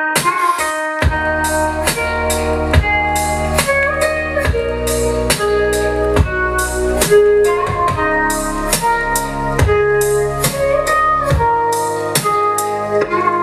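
Music with a steady drum beat and held notes, played in the room through floor-standing Celestion Ditton 44 hi-fi speakers and a Bang & Olufsen Beolab 2 active subwoofer. A deep bass line comes in about a second in and drops out near the end.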